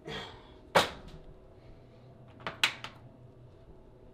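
One sharp knock about a second in, then two quick clicks in close succession about two and a half seconds in: small hard objects knocked or handled at a kitchen stove.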